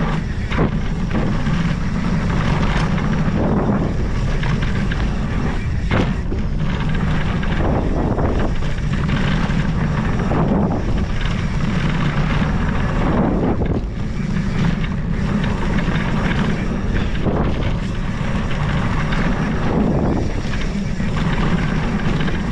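Mountain bike riding fast down a dirt trail: steady wind rush over the bike-mounted camera's microphone and knobby tyres rumbling on the dirt, with a few sharp knocks from bumps.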